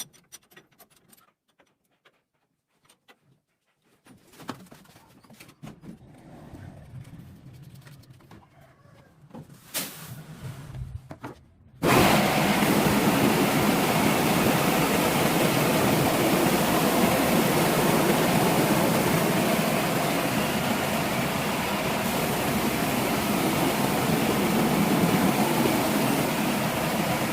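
A few faint clicks and handling noises, then about twelve seconds in a motor starts abruptly and runs steadily and loudly.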